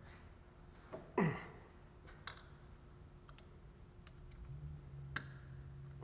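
Sparse light clicks and taps of metal parts being handled and fitted at a car's front steering knuckle and wheel hub. About a second in comes a brief, louder sound that falls sharply in pitch. A low steady hum comes in near the end.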